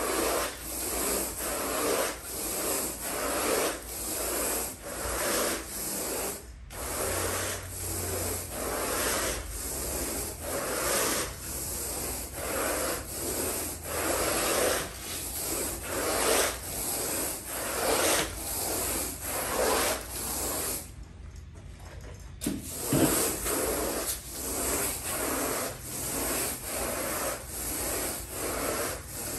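Carpet rake dragged back and forth through the carpet pile in quick, even strokes, about one and a half a second, each a rasping rub. The strokes stop for about a second and a half roughly two-thirds of the way through, then carry on.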